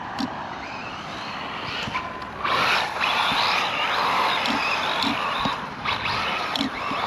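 Electric RC rally car driving over sand: motor whine rising and falling with the throttle over tyre and gravel noise, louder from about two and a half seconds in.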